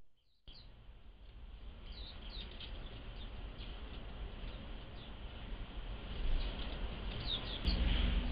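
Small wild birds giving many short, high chirps over a steady low background rumble. The sound drops out briefly at the start, and a sharp click comes near the end, after which the rumble is louder.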